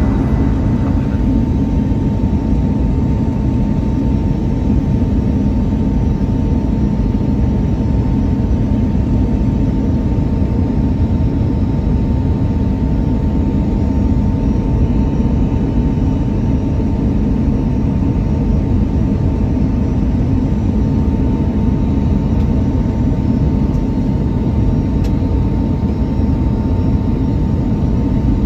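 Airbus A319 cabin noise on final approach from a seat beside the wing engine: a steady low jet-engine and airflow rumble with a thin, constant whine running through it.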